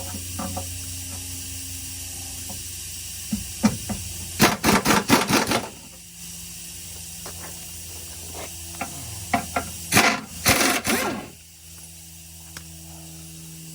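Two short bursts of rapid mechanical hammering from a pneumatic impact wrench, each lasting about a second and a half, loosening the bolts of the truck's lower front skid plate. Scattered small clicks and a steady hiss run between them.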